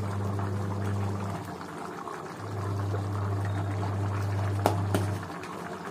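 Rice and potato tahari boiling and bubbling in an aluminium pot, over a low steady hum that drops out about a second and a half in and returns a second later; a single sharp click near the end.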